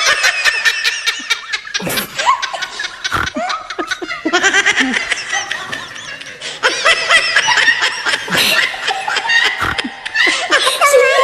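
A string of laughter sound effects: loud, high-pitched fits of rapid ha-ha pulses, one laugh after another, with short breaks between them.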